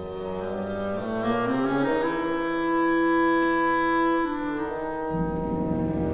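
Orchestral woodwinds, clarinet and bassoon, playing a slow line that climbs note by note to a long held note. Low strings come in about five seconds in.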